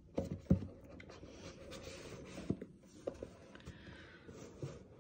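Small cardboard drawer slid back into its slot in a cardboard advent-calendar unit: a couple of light knocks about half a second in, then soft scraping and rustling with a few small taps.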